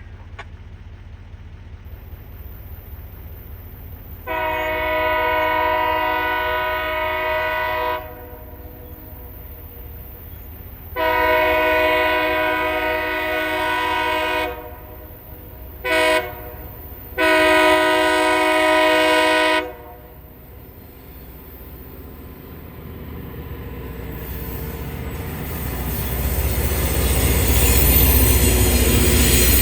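A locomotive air horn sounds the grade-crossing signal: two long blasts, a short one and a final long one. Then the rumble of the approaching train grows steadily louder.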